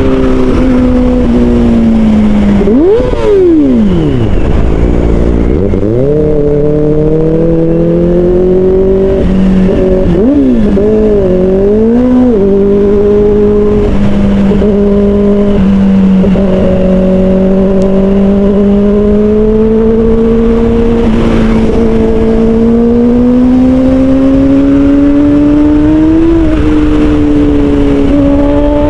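Kawasaki Ninja ZX-4RR's 399 cc inline-four, fitted with an aftermarket Austen Racing muffler, running at high revs under way. The revs flick up then fall off sharply about three seconds in, dip and rise quickly a few times around ten to twelve seconds, then climb gradually near the end.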